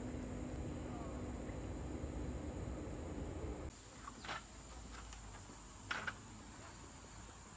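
Tropical forest ambience: a steady high-pitched insect drone throughout, with a low steady hum in the first half that cuts off suddenly. In the quieter second half, a few short chirps stand out.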